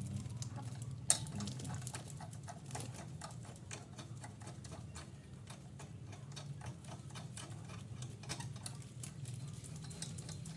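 A quick series of small ticks or clicks, a few a second, with one sharper click about a second in, over a steady low hum.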